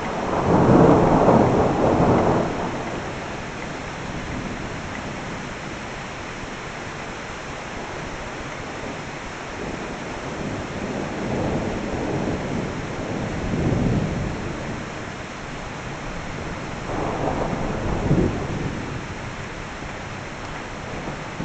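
Thunder rumbling during a rainstorm over a steady hiss of rain. The loudest roll of thunder comes right at the start and lasts about two seconds, and fainter rumbles swell up twice more later on.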